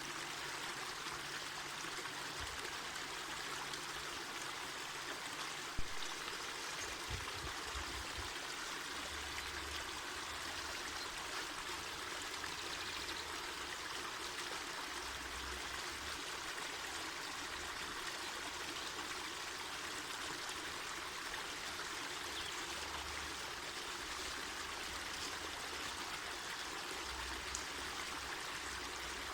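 Mountain forest river flowing over rocks, a steady rushing and trickling of water. A single brief knock about six seconds in.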